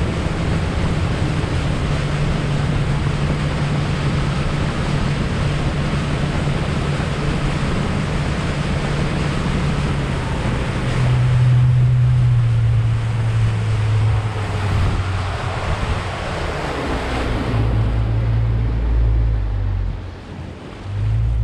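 Wind buffeting the microphone and water rushing along the hull of a moving fishing boat, over the steady low hum of its outboard engine. The engine hum drops in pitch about halfway through and again a few seconds later.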